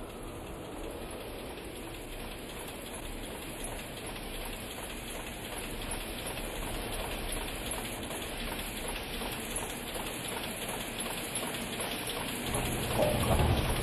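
Steady hissing, rain-like noise from the soundtrack, growing slowly louder and swelling near the end with a low rumble.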